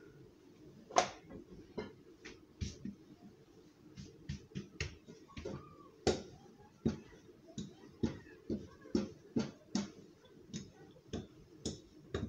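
Irregular sharp taps and slaps as hands pat and spread a thin oiled sheet of msemen dough on a table, about twenty in all, the loudest about a second in.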